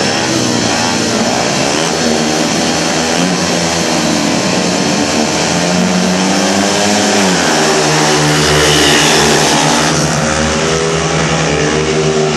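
Several speedway motorcycles revving at the starting gate, engine pitches rising and falling. About halfway through they pull away and run on as a steady loud, more distant engine noise as the bikes race round the track.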